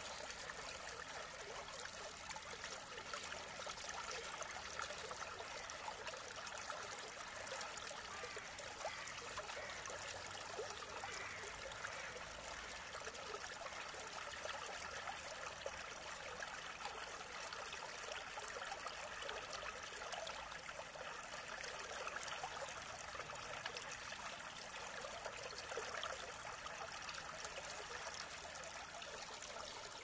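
Mountain stream flowing steadily: an even rush of water, bright and with little low rumble.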